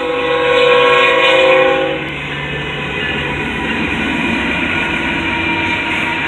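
Diesel locomotive air horn on a CSX coal train sounding one chord that cuts off about two seconds in, followed by the steady rumble and wheel noise of the train rolling by.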